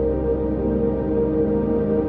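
Ambient background music: sustained, slow-changing synthesizer chords over a low drone.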